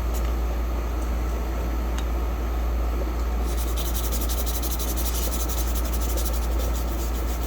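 Small brush scrubbing freshly soldered joints with alcohol to clean off solder flux: rapid scratchy strokes start a few seconds in. A steady low hum runs underneath.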